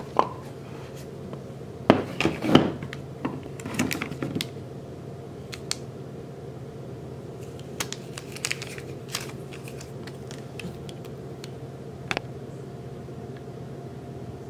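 Handling noises from a cardboard sunglasses box and a pair of sunglasses being lifted out and turned over: scattered clicks and short rustles, loudest about two seconds in, over a steady low hum.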